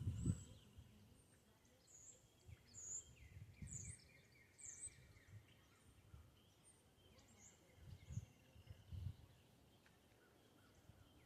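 Faint birdsong: a bird repeating short, high chirps about once a second, fading out after about eight seconds. A few soft low bumps sound now and then.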